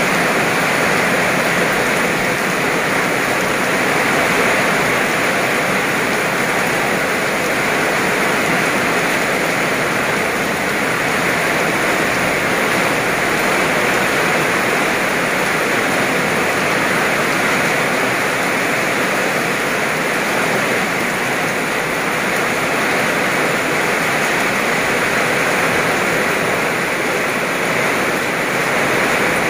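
Heavy rain pouring down steadily onto a wet paved road, grass and puddles: a dense, even rush of falling water with no letup.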